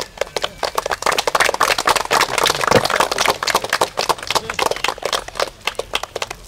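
A group of people clapping: many sharp, irregular claps that start about half a second in and die away near the end.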